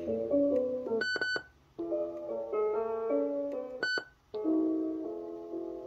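Music playing back from a cassette on a Sony WM-FX675 Walkman, interrupted twice by the player's short electronic beep as a button is pressed to change sound mode. After each beep the music cuts out for a moment, then resumes.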